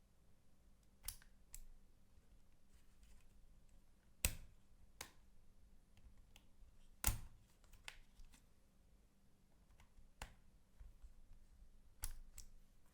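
Scattered sharp clicks and taps of a Dell E7470 laptop being handled during disassembly: its plastic and metal parts knocking, with two louder clicks about four and seven seconds in.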